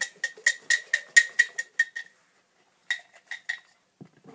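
A small box built of plastic Lego bricks being shaken hard, its contents rattling in quick clinking knocks about four a second. The knocks stop about two seconds in, come back briefly as four more knocks, then stop as the box is set down.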